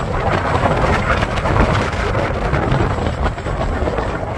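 Strong wind buffeting the microphone: a loud, dense rush of wind noise, heaviest in the low rumble.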